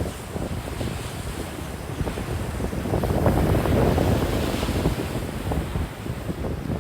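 Ocean surf breaking and washing up a sandy beach, with wind buffeting the microphone. The wash swells louder about three seconds in.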